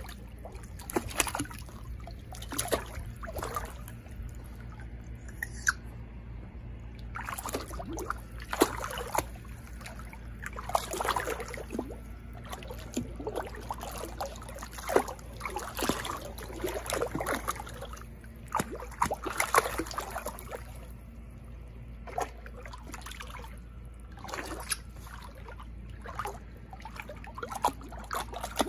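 Shallow water in a plastic kiddie pool sloshing and splashing as a small dog and a person wade through it, in short, irregular bursts.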